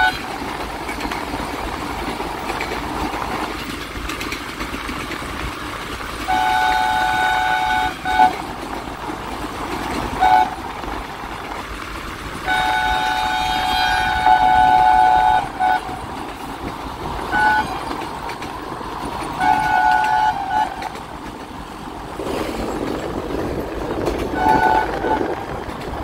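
Diesel locomotive horn sounding a series of blasts, some long and some short, over the steady running noise of the train.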